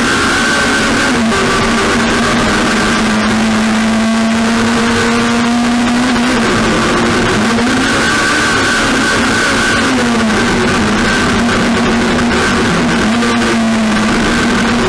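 Race car engine running hard at high revs, with brief lifts where the note drops and climbs back several times, over loud wind and road noise.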